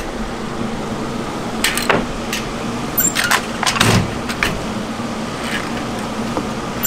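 Metal clicks and clunks of a hand-operated hard-candy cutter press as its hinged, ribbed metal lid is closed down by the handle onto a rope of candy and lifted again. A heavier clunk comes about four seconds in. An electric fan hums steadily underneath.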